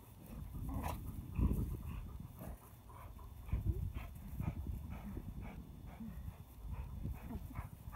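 A puppy playing tug of war with a rope: irregular scuffling and thumps in dry grass, with short dog noises mixed in.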